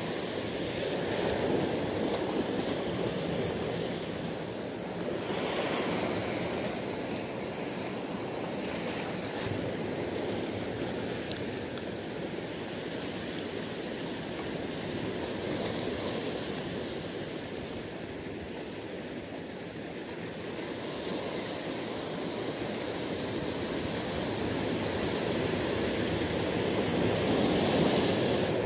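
Sea surf washing and breaking against shore rocks, swelling and easing in waves, loudest near the end.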